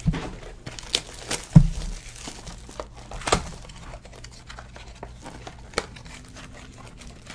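Wrapped trading-card packs and their cardboard box being handled: crinkling wrappers with several sharp taps and a loud thump about a second and a half in.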